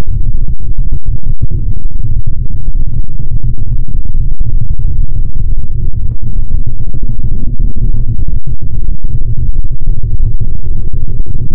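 Loud, deep, muffled electronic music, almost all low bass rumble with no clear treble, broken by brief dropouts.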